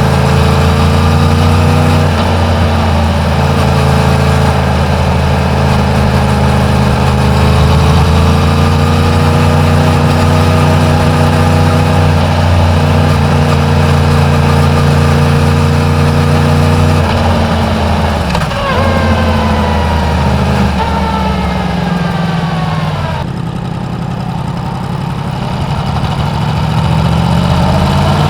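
Yamaha MT-10's crossplane inline-four on its stock exhaust, running at low revs under way with small rises and falls in pitch. About two-thirds of the way in the revs fall away as the bike slows, it runs quieter for a few seconds, then the revs climb again near the end.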